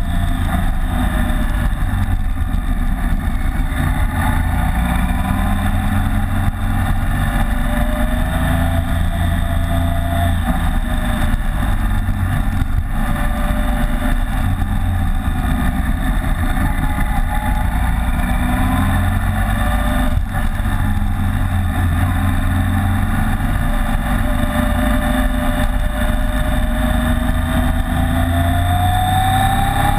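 BMW K75 motorcycle's inline three-cylinder engine running under way, its pitch rising and falling with speed and climbing near the end, under a steady rush of wind over the windshield-mounted microphone.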